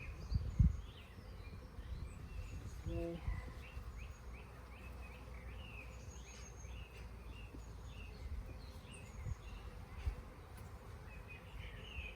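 Small birds chirping and calling again and again, over a low rumble, with a dull bump about half a second in.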